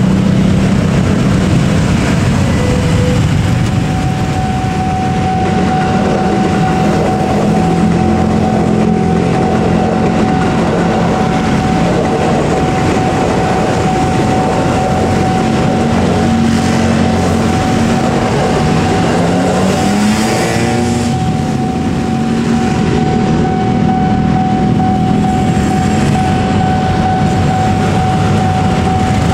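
Motorcycle and car engines running at a busy railway level crossing while a KRL commuter electric train passes. A steady high tone starts a few seconds in and holds through the rest.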